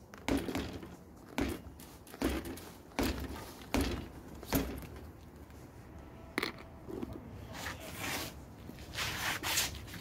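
A 2015 Academy Aspire BMX bike bounced on its tyres on a concrete floor in a bump test for loose parts: about a dozen dull thumps at uneven intervals, with no rattle from the chain or fittings. The bike comes out pretty quiet, with nothing loose.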